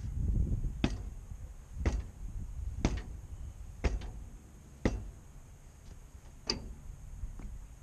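Sharp knocks, evenly spaced about one a second, six in all, with a longer gap before the last, from tool work on a forklift wheel during a tube change. A low rumble runs underneath.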